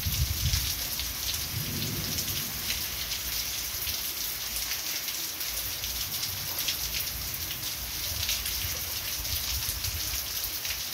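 Heavy rain pouring down, with water streaming off a roof edge and splattering close by: a steady hiss full of constant drop patter. A low rumble dies away over the first two seconds.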